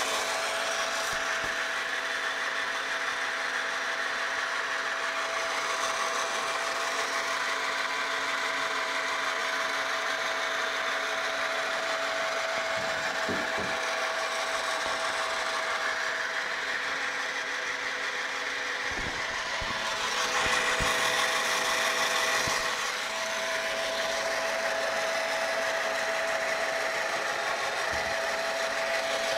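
The robot's hacked XU1 drill motor running at a steady speed with an even whine. It gets a little louder for a couple of seconds about two-thirds of the way through.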